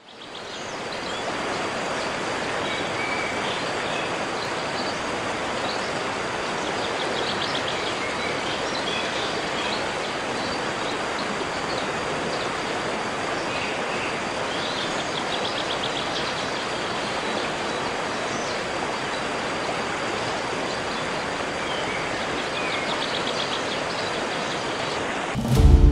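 River water rushing steadily over rocks, an even hiss with no rhythm. A few short high chirps and trills sound faintly above it now and then.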